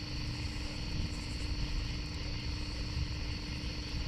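Steady low rumbling drone, like a running engine, with a constant hum tone over it.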